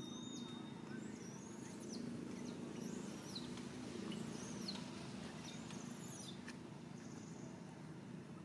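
A baby monkey's high-pitched squeaks: short calls, each rising then falling in pitch, repeating about once or twice a second over steady low background noise.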